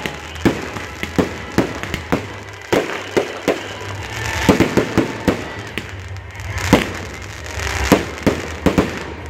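Aerial fireworks bursting in quick succession: a run of sharp bangs, several a second, with crackling between them and the loudest cluster about halfway through.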